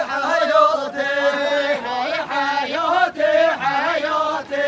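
Several men singing a halay dance song together without instruments, chanting in unison with long held notes.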